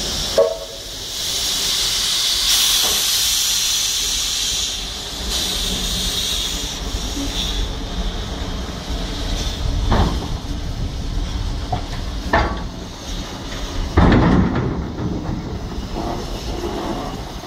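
Mount Lyell tank steam locomotive letting off steam in a loud hiss for about four seconds, then moving off with a rough mechanical rumble and three heavy clunks in the second half, the last the loudest.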